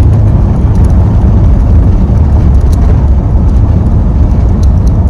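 Loud, steady low rumble of a moving vehicle's road and engine noise, with no break through the whole stretch.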